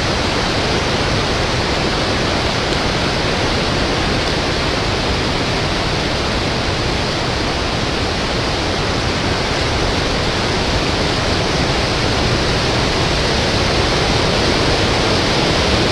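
Steady rush of hurricane wind through the trees, an even noise with no breaks or gusts standing out.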